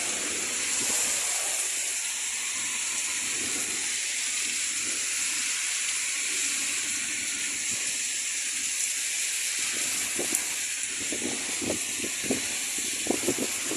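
Heavy rain pouring down on a street, a steady hiss; from about ten seconds in, scattered short taps of drops or pellets hitting nearby.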